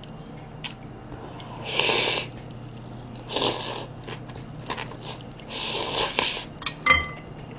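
Cold naengmyeon noodles in broth slurped up in three long slurps, with a few light clicks near the end.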